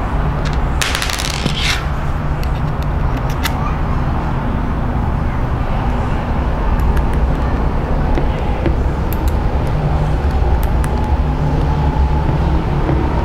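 Scattered light clicks and a short scrape about a second in, from an Allen wrench and bolts being worked into a paintball marker's grip frame, over a steady low rumble.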